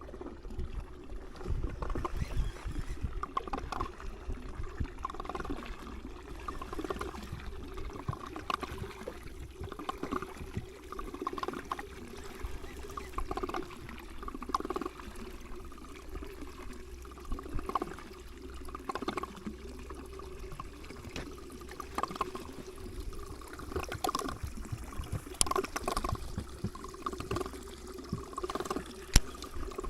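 Water lapping and trickling against a small boat's hull in irregular little splashes, over a faint steady hum.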